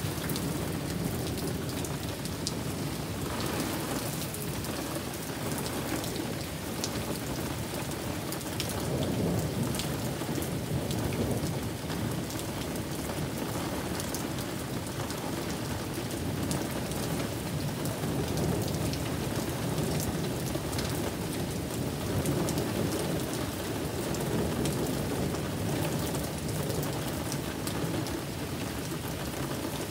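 Heavy rain pouring steadily onto a patio and garden, a dense hiss with a low rushing layer that swells louder twice, about a third of the way in and again past the middle.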